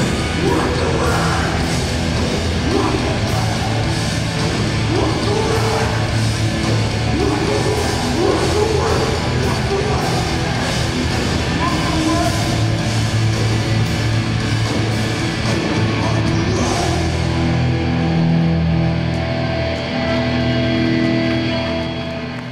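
Hardcore punk band playing live, loud, with distorted guitar and drums. Near the end the drum hits thin out and held guitar chords ring on.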